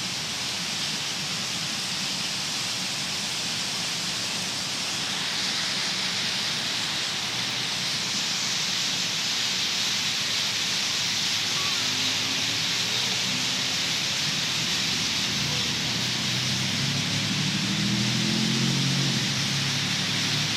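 Dense, continuous chirping of a huge flock of birds roosting in the trees, blending into a steady hiss that grows fuller about five seconds in. A low rumble builds underneath near the end.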